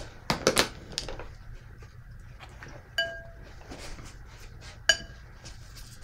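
A paintbrush clinking against hard painting gear at the palette: a few quick knocks near the start, then two single ringing clinks about three and five seconds in.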